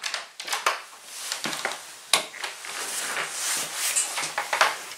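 Irregular clicks, taps and rustling of someone moving about and handling things in a small room, with a few sharper knocks about two seconds in and near the end.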